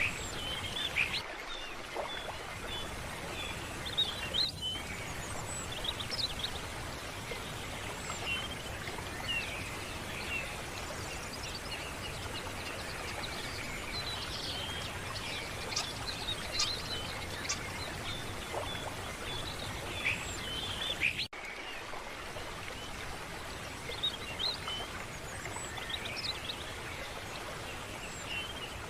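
Many small birds chirping in short, high calls over a steady rushing background, like a flowing stream. About two-thirds of the way through, the sound briefly drops out and comes back.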